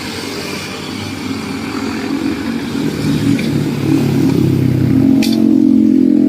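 Road traffic with a motor vehicle's engine, likely a motorcycle, getting steadily louder as it comes closer, loudest near the end.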